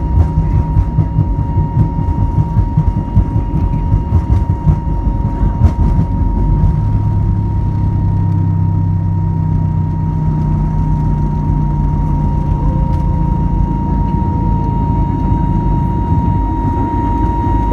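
Cabin sound of an Airbus A320neo on its takeoff run: the jet engines run at high power with a steady whine, over a heavy, jolting rumble from the wheels on the runway. About six seconds in, the jolting stops and the rumble turns smooth and steady, as when the wheels leave the ground.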